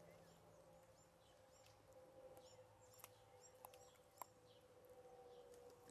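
Near silence with faint, repeated bird chirps and a few soft clicks about three to four seconds in.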